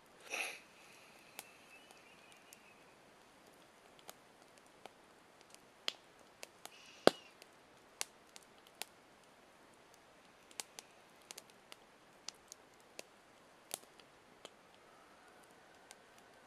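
Wood campfire crackling: scattered, irregular sharp pops over a faint hiss, with one much louder pop about seven seconds in. A short breathy sound comes right at the start.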